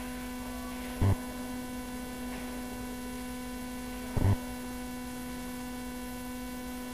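Steady electrical hum on the recording, a buzz with a string of evenly spaced overtones. It is broken twice by a brief short sound, about a second in and again about four seconds in.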